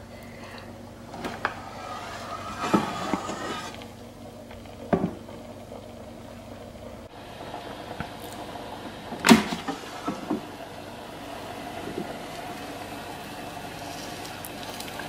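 Power XL air fryer running with a steady fan hum. Over it come several clicks and knocks from the basket drawer being handled, with one sharp clunk about nine seconds in as the drawer is pulled open to check the chicken.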